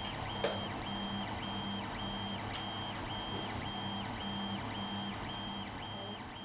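Creality Ender 3 3D printer running a print, really loud: its stepper motors whine in a regular back-and-forth rhythm, a high whine pulsing about twice a second with a lower tone in step, over a steady hiss. The sound fades out near the end.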